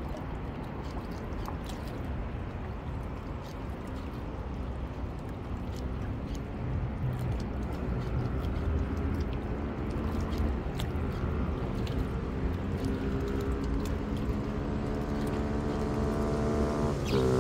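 Motorboat engine humming, growing steadily louder as the boat approaches, its pitch edging up near the end, over a low rumble of wind and water.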